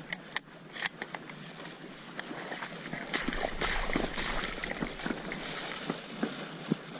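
A retriever splashing through shallow marsh water on a retrieve, with dry tule reeds crackling close by in the first second.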